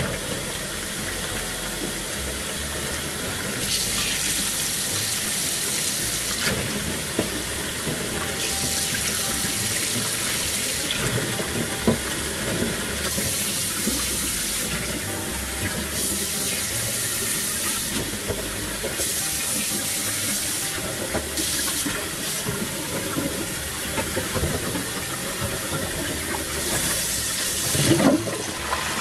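Tap water running into a stainless steel bowl of eggs in a steel sink, splashing as hands rub and rinse the eggs under the stream. The splashing gets louder near the end.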